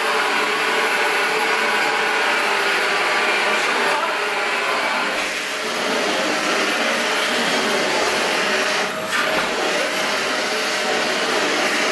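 Dyson Big Ball Animal canister vacuum cleaner running steadily, its motor whining with a rush of suction as the floor head is pushed back and forth over a shaggy rug, dipping briefly a couple of times.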